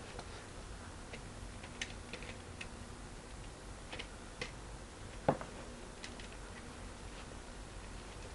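Light, scattered clicks and knocks of plastic Lego bricks as a homemade Lego brick-firing rifle and its magazine are handled and fitted together. One louder knock comes about five seconds in.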